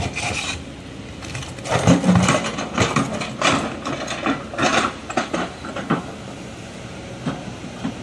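Excavator bucket shoving a large boulder over rocky ground: irregular crunching and scraping of rock against gravel and stone. It is busiest and loudest from about two seconds in to around five seconds, then thins to scattered crackles.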